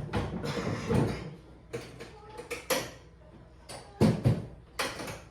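Motorcycle luggage parts being handled: about a second of rattling and scraping, then a string of sharp clicks and knocks from hard cases and fittings.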